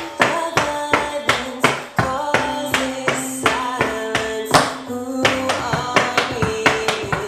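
Tap shoes striking a wooden tap board in a quick rhythm, several taps a second, over a recorded song with singing and guitar.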